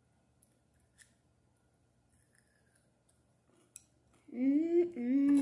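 A few faint clicks of wooden chopsticks snapping together, then about four seconds in a girl humming a few held notes.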